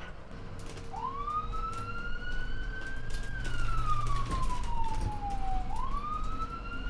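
Emergency-vehicle siren wailing slowly: the pitch climbs for about two seconds, falls for about two and a half, then climbs again near the end, over a low rumble.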